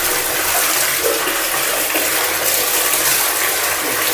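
Water running steadily with an even hiss while a dog is being bathed.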